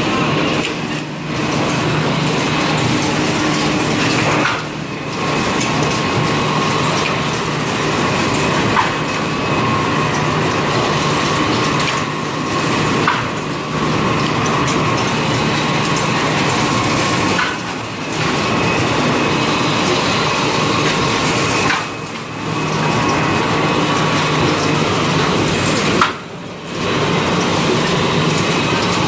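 XY AI 398D automatic kitchen towel roll packing machine running: a loud, steady mechanical din with a low hum, dropping briefly in level every few seconds.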